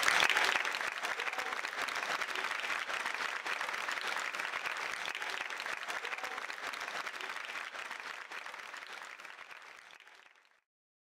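Audience applauding: a dense patter of many hands clapping that slowly dies away and stops shortly before the end.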